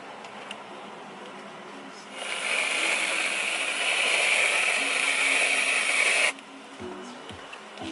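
Whipped cream dispenser spraying whipped cream: a loud hiss that starts about two seconds in, runs for about four seconds and cuts off suddenly.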